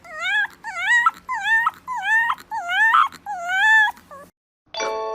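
A young pet animal crying over and over in high-pitched whimpers, about two a second, each rising and falling in pitch. The cries stop about four seconds in, and a chime of bell-like tones starts near the end.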